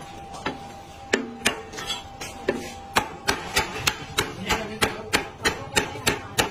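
Heavy Chinese cleaver chopping roast goose into pieces on a thick round wooden chopping block: sharp knocks, a few spaced ones at first, then a steady run of about three chops a second.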